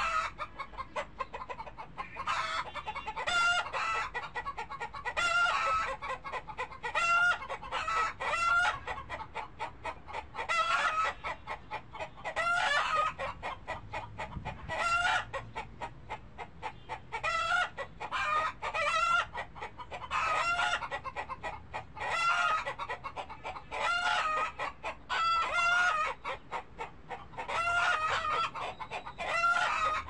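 Chickens clucking and calling, short pitched calls coming in repeated clusters every second or two.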